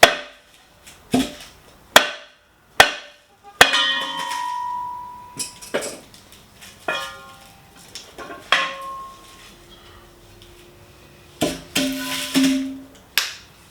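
Irregular metallic clanks and knocks of tools and hardware on three-piece wheel parts during disassembly, about a dozen strikes. Some strikes leave a short ringing tone, the longest about four seconds in.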